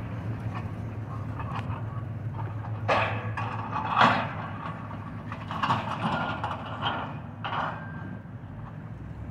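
Caterpillar track hoe's diesel engine running steadily while its bucket works a pile of demolition rubble, with irregular crashes and clatter of broken masonry and concrete, the loudest about four seconds in.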